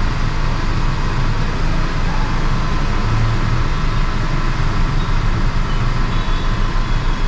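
Steady vehicle noise with a low rumble: engines and traffic running continuously.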